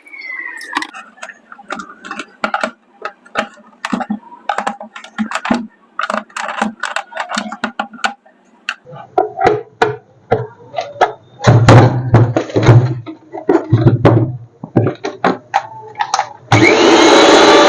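Repeated small clicks and knocks of a blender being reassembled by hand, its nuts being fastened. Near the end the blender's motor switches on and runs loudly, rising in pitch as it spins up, working again after its faulty power cord was replaced.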